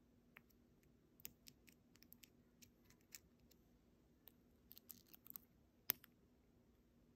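Faint clicks and light scrapes of fingers handling a small SIM unlock chip, with one sharper click about six seconds in.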